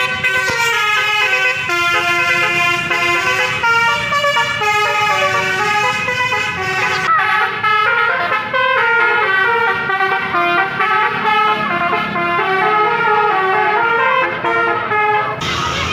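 Multi-tone 'telolet' bus air horn playing a quick melody of stepped notes over the rumble of road traffic.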